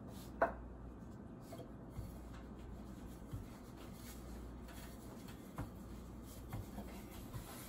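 Faint rubbing and soft patting of hands pressing and shifting wet dough on a floured, plastic-covered counter, with a few light taps, over a low steady hum.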